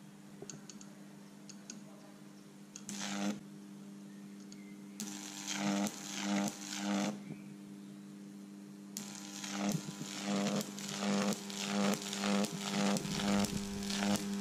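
High-voltage transformer humming steadily, with electric arcs crackling across its horn-gap electrodes. There is one brief burst of crackle about three seconds in and a cluster between about five and seven seconds. From about nine seconds the arcs strike again and again, about twice a second.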